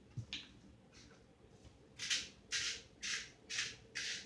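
Salt shaker shaken over a pot: five quick hissy shakes, about two a second, starting about halfway through.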